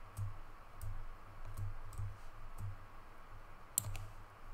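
Faint computer mouse clicks, a few spaced out and a sharper pair near the end, over a low hum.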